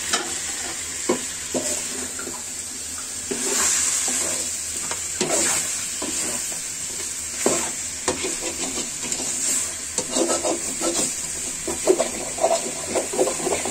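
A metal spoon stirring and scraping chicken curry around an aluminium pan, with short knocks against the pan and a steady sizzle of the meat and masala frying in oil over a gas flame as the water cooks off.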